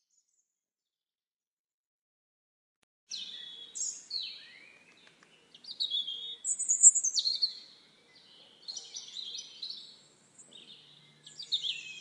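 Small garden songbirds chirping and calling in a run of short, high notes, many of them falling in pitch, beginning about three seconds in.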